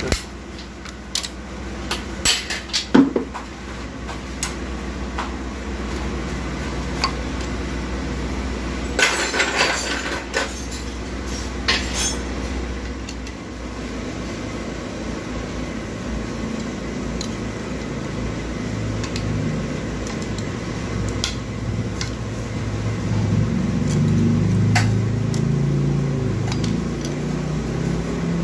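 Metal automatic-transmission parts clinking and knocking as they are handled and taken apart, in scattered bursts over a steady low hum.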